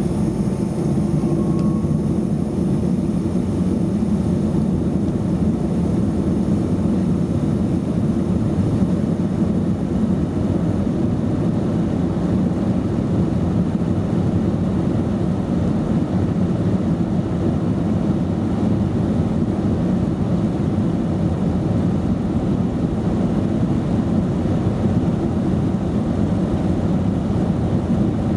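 Cabin noise of a Boeing 737-200 with Pratt & Whitney JT8D-17 turbofan engines: a steady low rumble heard from inside the passenger cabin.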